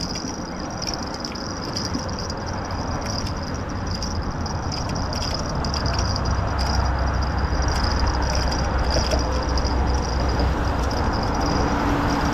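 Steady rumble of traffic on the bridge with wind noise, growing louder over the first few seconds, with a deeper rumble in the middle. A spinning reel is cranked through it as a hooked porgy is reeled up to the surface.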